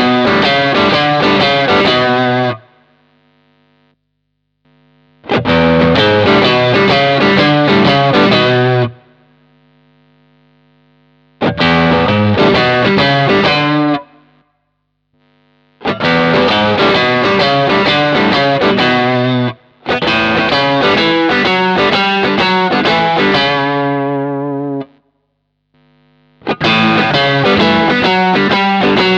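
Electric guitar played through an overdrive pedal, with a mildly distorted tone. It plays six short riffs of quick notes, each a few seconds long with brief pauses between them, and some riffs end on a held chord that rings out.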